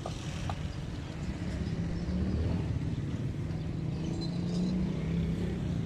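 Steady low engine hum and rumble over general outdoor background noise.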